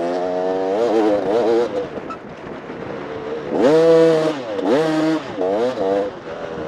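Enduro dirt bike engine revving up and down as the throttle is worked repeatedly, with the loudest burst of throttle a little past halfway.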